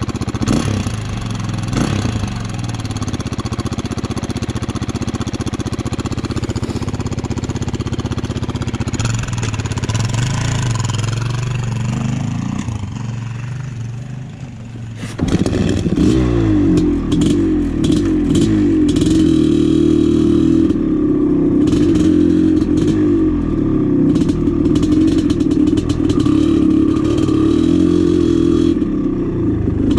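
Dirt bike engine running. About halfway through, the sound abruptly becomes louder and steadier.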